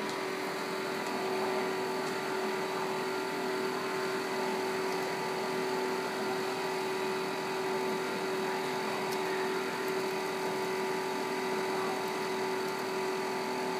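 Steady machinery hum with several constant tones over an even whir, unchanging throughout.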